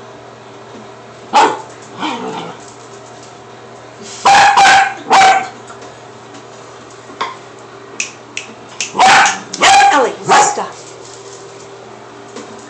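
A dog barking at a cat, with short sharp barks in clusters of two or three and pauses of a few seconds between.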